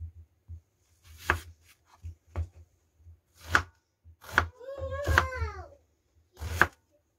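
Kitchen knife cutting through white onions and knocking on a wooden cutting board: about eight uneven chops. A brief high-pitched wavering sound comes around five seconds in.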